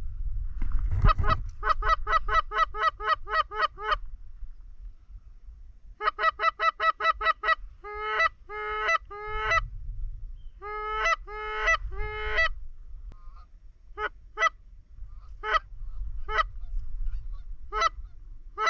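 Goose honking: runs of short, evenly spaced honks about five a second, then longer drawn-out honks, then single honks a second or so apart. A low rumble lies under the start.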